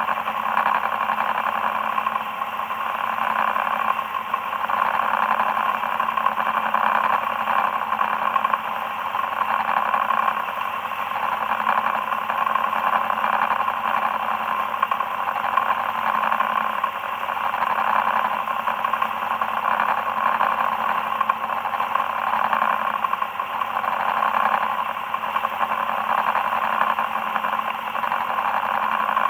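A boat's engine running steadily while the boat is under way.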